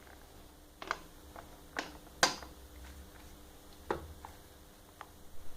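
Scattered small metallic clicks and taps, about seven or eight at uneven intervals, as the scope is fitted and adjusted on a LARM takedown bolt-action rifle; the loudest comes about two seconds in.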